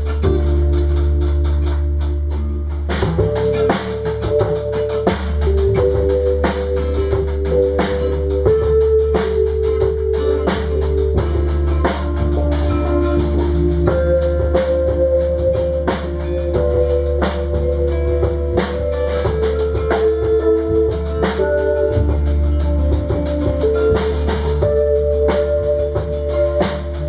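Live band jamming: a drum kit with cymbals keeps time under held keyboard chords that change every second or two, with an electric guitar and a heavy low end.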